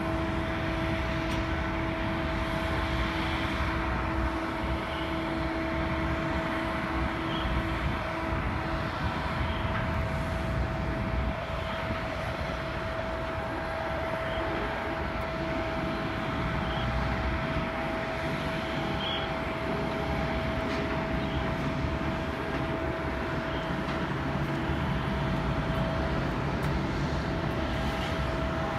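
Jet airliner engines running steadily: a broad, even rumble with a steady whine over it. A second, lower tone fades out about eleven seconds in.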